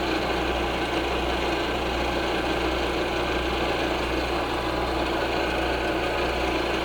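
Milling machine running steadily, its cutter taking a cut across an aluminium part.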